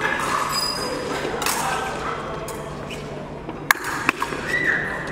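Steel epee blades striking twice in a quick exchange, two sharp metallic clinks under half a second apart, followed by a short steady high beep. Voices murmur in the background.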